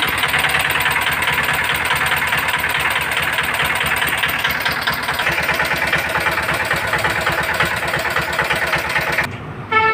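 CD single-cylinder diesel engine running steadily, sounding very bad, and cutting off near the end. The owner traces the bad sound to the valves touching the piston top.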